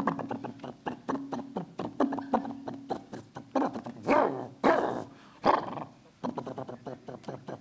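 A man imitating a tuba with his voice into a handheld microphone: a low buzzing hum with rapid clicking pulses, then a few loud rising-and-falling swoops. It comes out sounding like a chainsaw.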